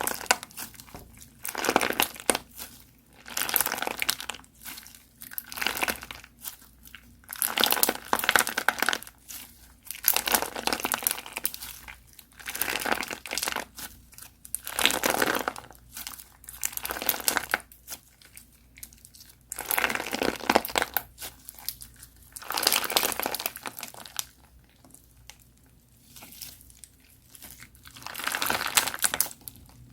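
Crunchy slime being squeezed and pressed by hand, giving repeated bursts of crackling crunch, each about a second long, with short quiet pauses between.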